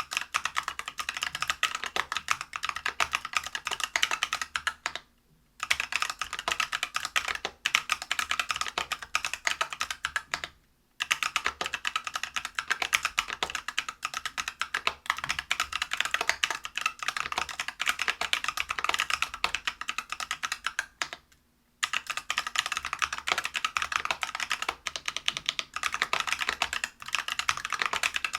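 Typing on a Whale 75 mechanical keyboard with stock, unlubed Neapolitan Ice Cream 63.5 g tactile switches, a brass plate and PBT keycaps. It is a dense, continuous run of keystroke clacks, broken by three brief pauses: about five seconds in, about eleven seconds in, and about twenty-one seconds in.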